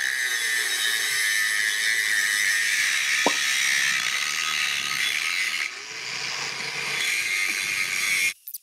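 Budget corded angle grinder with an abrasive grinding disc bevelling Schedule 80 steel pipe: steady, high-pitched grinding, easing off briefly about six seconds in and cutting off near the end. The cheap disc is wearing away faster than the metal, throwing more disc dust than steel.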